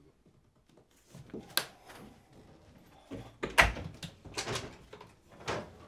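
Doors being shoved open: a series of sharp knocks and clacks, the loudest with a deep thud about halfway through.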